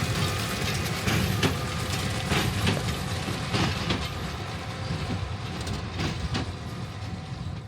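Big square baler working behind a tractor: the engine runs steadily under a rhythmic clacking, with paired knocks about every second and a quarter from the baler's plunger strokes.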